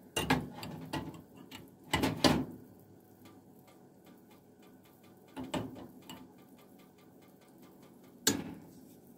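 Handling noises of a spice container and measuring spoon as poultry seasoning is measured and tipped into a pot of simmering broth: a few brief knocks and rustles, with a faint rapid ticking between them.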